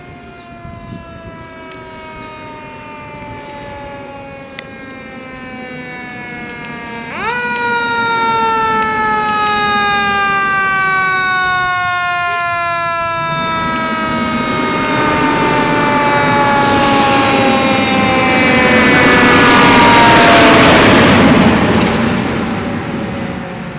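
Fire engine siren falling slowly in pitch, jumping sharply back up about seven seconds in, then falling slowly again. The fire engine's engine and road noise swell as it passes close, loudest about twenty seconds in, then fade.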